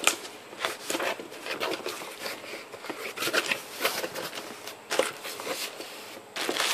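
Phone packaging being handled: a run of irregular rustles, scrapes and small clicks of cardboard and plastic.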